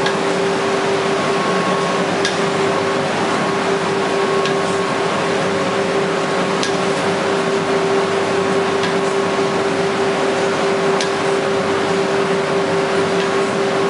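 UV roller coating line for MDF panels running: a steady machine hum with one constant tone over a hiss, and a few faint clicks.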